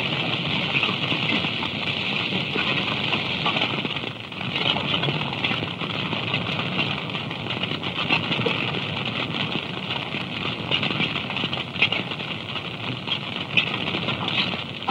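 Forest fire burning: a steady rushing noise with many small crackles throughout, on an early-1930s film soundtrack.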